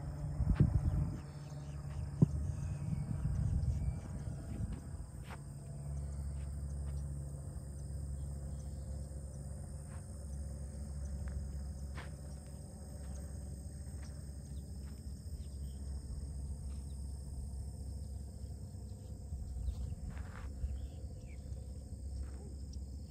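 Insects trilling steadily over a low steady rumble of outdoor noise, with a few faint sharp ticks; rough handling-like noise in the first second or so.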